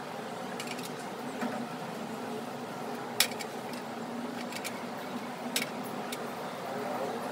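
Water heating in a carbon steel pan over a gas burner, making a steady hiss with scattered sharp ticks and clinks, the loudest about three seconds in.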